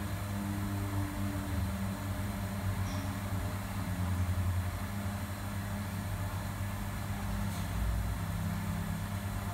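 Kitchen machinery running: a steady low hum with an even rushing noise over it.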